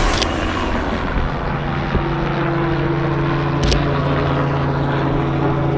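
A motor running steadily at a constant pitch, with a single sharp click a little past the middle.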